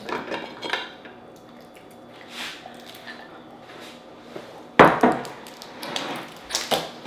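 Dungeness crab shell being cracked and pulled apart by hand, with shell pieces clicking and knocking against a plate. There are a few short cracks at the start, and the loudest sharp knocks come about five seconds in and again near the end.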